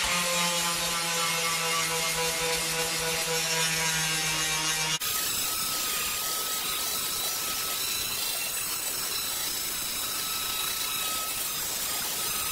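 Angle grinder grinding paint and metal off a car's steel door panel, running steadily. For about the first five seconds it is a steady motor whine; then it changes abruptly to a harsher hiss with a thin high whine.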